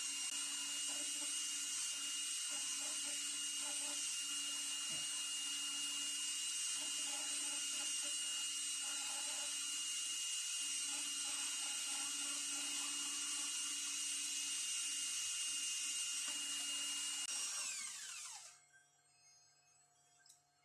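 Electric drill spinning a vice anvil held in its chuck while it is smoothed by hand: a steady high motor whine with hiss. About 17 seconds in the motor winds down, its pitch falling, and stops.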